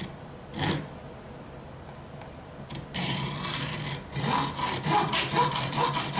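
Hacksaw cutting through a clear plastic water-cooling reservoir. A single stroke comes about half a second in; steady sawing starts about three seconds in and turns into quick short strokes, about four a second.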